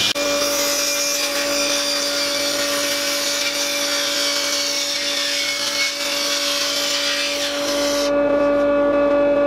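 Table saw ripping a thin strip of mahogany along the fence, the blade's cutting noise over the steady hum of the running motor. About eight seconds in the cut ends and the saw runs on free.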